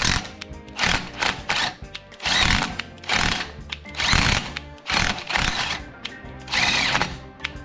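Axle flange bolts being tightened by hand with a wrench: five or so harsh rasping strokes about a second apart, over background music.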